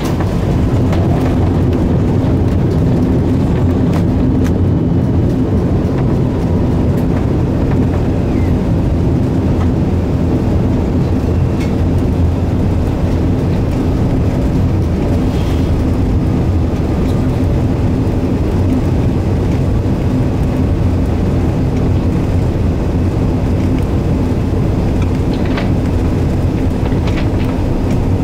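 Airbus A380 cabin noise as the airliner rolls along the runway after landing: a steady low rumble from the engines and the wheels, with a steady hum. A few faint rattles come near the end.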